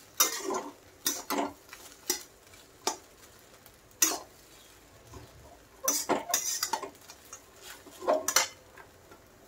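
Metal spatula scraping and knocking against a metal kadai as poha (flattened rice) with vegetables and peanuts is stirred and tossed, in irregular strokes about a second apart with a short pause midway.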